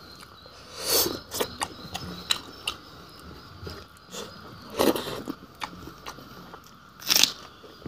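A person chewing and crunching food, with three louder crunches about a second in, near the middle and near the end, and small wet clicks between.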